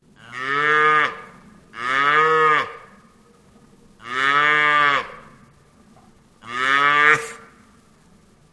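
Cow mooing four times, each call about a second long and rising then falling in pitch, with short pauses between.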